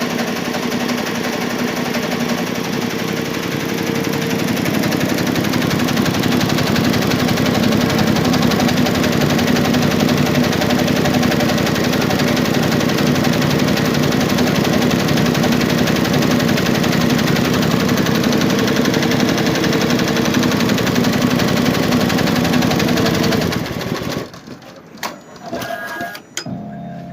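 Computerized embroidery machine stitching at speed, a dense rapid mechanical clatter that stops abruptly about 24 seconds in, followed by a few light clicks.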